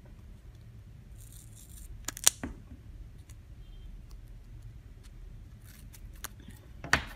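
Scissors cutting a strip of double-sided tape: a few sharp snips and clicks of the blades, the loudest about two seconds in and another near the end, with a short rustle about a second in.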